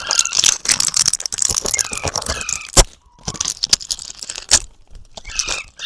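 A young parrot making short, squeaky downward chirps over dense crackling and crunching, with two sharp clicks.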